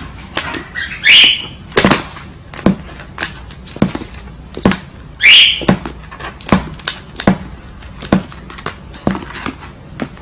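A pet parrot squawking sharply twice, about a second in and again about five seconds in, among a run of sharp clicks or taps.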